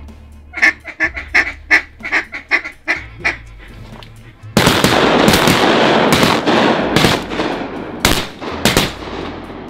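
A rapid run of loud duck quacks, about three a second. From about halfway, a volley of about six shotgun blasts, their echoes blending into one long noise that slowly fades.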